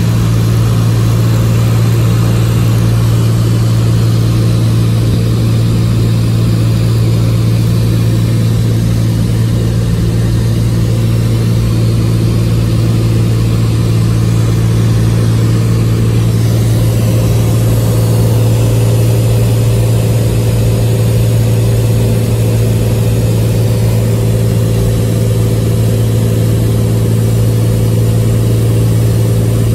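The Cessna 206H Stationair's six-cylinder Lycoming IO-540 engine and propeller running steadily at a constant power setting in flight, heard inside the cabin as a loud, even hum with a rushing hiss of air over it.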